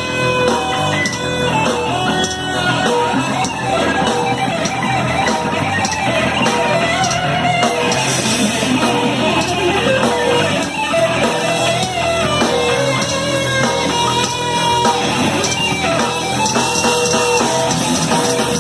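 Thrash metal band playing live: distorted electric guitars over a drum kit, in an instrumental passage without vocals.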